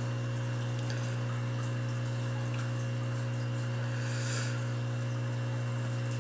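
Aquarium air pump humming steadily, a low electric buzz with overtones, driving an airstone that aerates a brine shrimp hatching container, over a faint hiss; a brief louder hiss comes about four seconds in.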